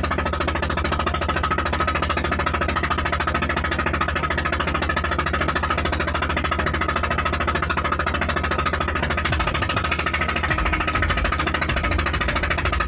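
Boat engine running steadily at cruising speed with a rapid, even knocking beat, the boat under way.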